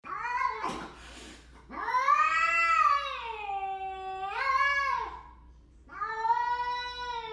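A cat's drawn-out territorial yowls (caterwauling) at a rival cat: two short hissing bursts, then one long wavering yowl that rises and falls over about three seconds, and a second long yowl starting about six seconds in.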